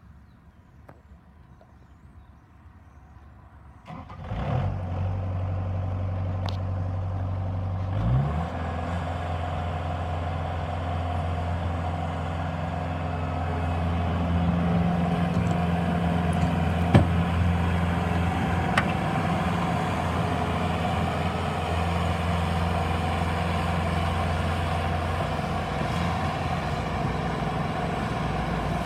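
Bobcat T180 tracked skid steer loader's diesel engine starting about four seconds in and idling. About four seconds later it speeds up to a higher steady speed and keeps running.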